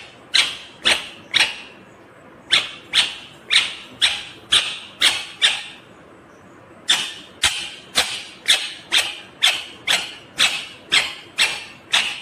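Indian ringneck parakeet giving loud, harsh repeated calls, about two a second, in three runs separated by short pauses.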